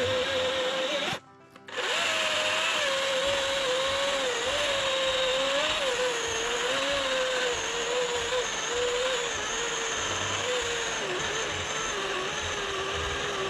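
DeWalt 60V FlexVolt battery chainsaw, its electric motor running under load as the chain cuts through a log: a steady high whine over chain hiss, wavering in pitch and sagging as the bar works into the wood. It breaks off briefly a little over a second in, then runs on through the next cut.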